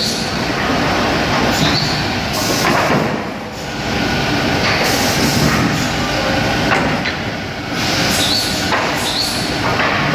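Optimizing cross-cut saw line running: steady machinery and conveyor noise, with bursts about every two seconds as boards are cross-cut, and short rising whines.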